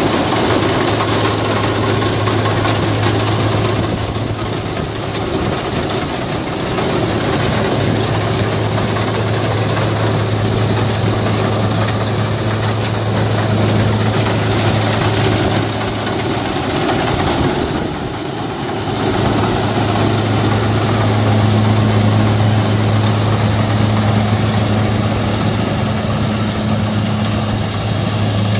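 Kubota DC60 combine harvester's diesel engine running steadily under load as it cuts rice, with a constant low hum and the rush of its threshing machinery. It eases off briefly about four seconds in and again near eighteen seconds.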